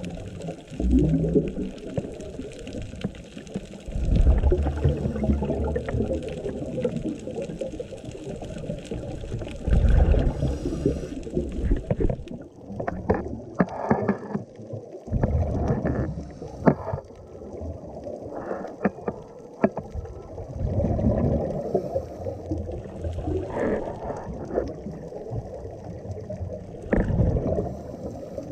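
Muffled underwater rumble of scuba breathing through a regulator, swelling with a burst of exhaled bubbles about every five to six seconds, with crackling bubble noise in between.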